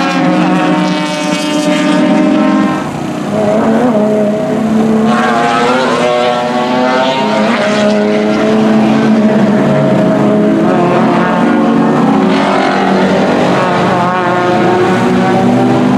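Several race car engines running on the circuit at once, their pitch rising and falling as the cars go by.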